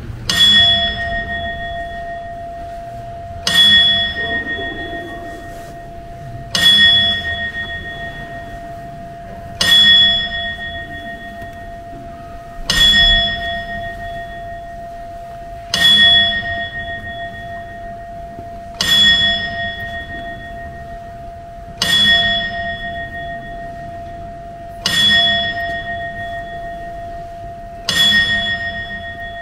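The bell of the Strasbourg Cathedral astronomical clock striking slowly and evenly, ten strokes about three seconds apart. Each stroke rings out clearly and dies away before the next.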